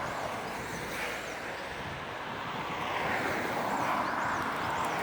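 Road traffic passing on a busy main road, a steady noise of tyres and engines that swells as a vehicle goes by about three to four seconds in.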